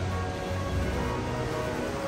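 Background music with held notes over a low bass line.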